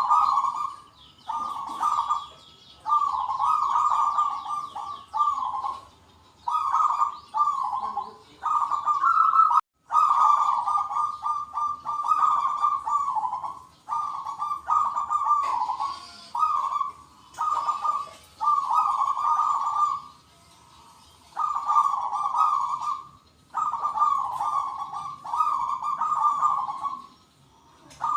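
Zebra doves (perkutut) cooing in a long run of repeated rolling phrases, several birds answering one another, with the deep 'kung' note prized by keepers. Smaller birds chirp faintly at a higher pitch behind them.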